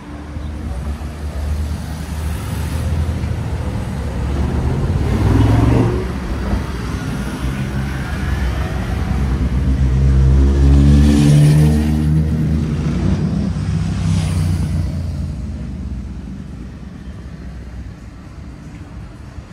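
Road traffic passing close by: vehicle engines going past on the street, the loudest about ten to twelve seconds in, with an engine's pitch rising as it accelerates. It fades off near the end.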